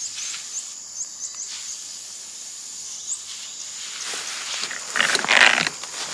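Backpack sprayer's wand hissing as it mists fungicide onto a young durian tree's leaves, over a steady high insect drone. A louder burst of noise comes about five seconds in.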